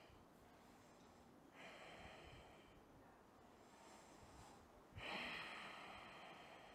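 A woman's quiet breathing: two slow breaths, about one and a half and five seconds in, the second louder and starting more sharply, then fading.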